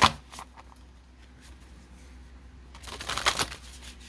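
Tarot cards being handled. A sharp slap of cards comes right at the start, then a brief flurry of card flicks about three seconds in.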